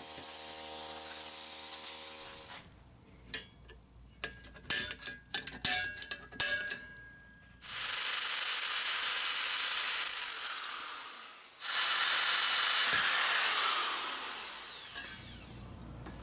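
A cordless drill boring into thin sheet-metal steel in steady runs of a few seconds, with a spell of sharp clicks and clatter of the sheet metal being handled between runs. The last run fades away rather than stopping sharply.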